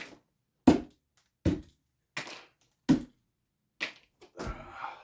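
Plastic tile spacers being pulled out of the joints between set tiles: a sharp click about every 0.7 s, six or seven in all, then a longer scraping rustle near the end.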